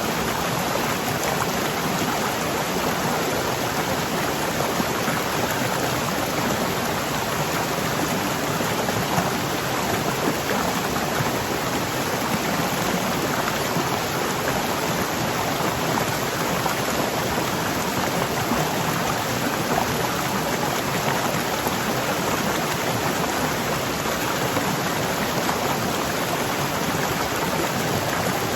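Waterfall rushing steadily: a dense, even roar of falling water with no let-up.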